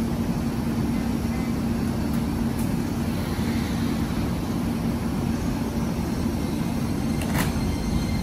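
Keisei 3000-series electric commuter train standing at the platform with a steady low hum from its equipment. Near the end there is a short sharp noise, and a faint high whine starts from the motors as the train begins to pull out.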